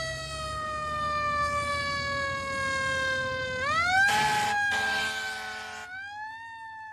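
Siren wailing: a long, slowly falling tone that sweeps quickly back up about three and a half seconds in and again about six seconds in, fading near the end. A loud burst of noise comes just after the first rise.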